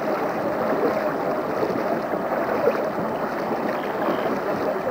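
A pack of swimmers doing front crawl, their arms and kicks splashing and churning the water in a steady wash of noise.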